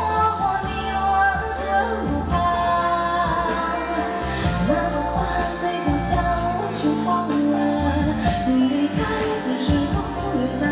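A live pop band playing, with drums and cymbals keeping a steady beat and a woman's voice singing over it.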